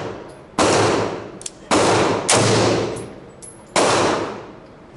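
AR-15 rifle fired four times at an uneven pace, each shot loud and sudden and followed by a long echoing tail from the walls of an indoor range.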